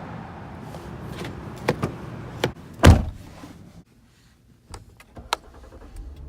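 Car door handling: several light clicks, then a loud door-shutting thump about three seconds in. Steady outside noise fades out soon after, leaving a few faint clicks in the quiet.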